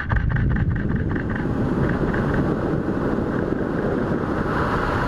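Wind rushing over an action camera's microphone during a freefall jump, coming in suddenly at the leap and staying loud and steady. A fast rhythmic ticking fades out in the first second and a half.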